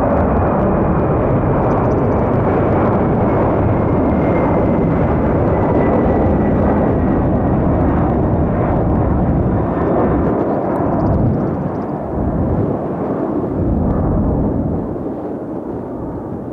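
Jet airliner passing close by: loud, steady engine noise with a thin whine that slowly falls in pitch, fading unevenly over the last few seconds.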